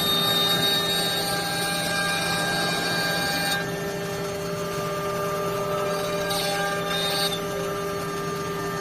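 Desktop CNC router's spindle running steadily as it carves a wooden rod turned on the rotary fourth axis: a constant whine with cutting noise. The higher hiss drops away about three and a half seconds in.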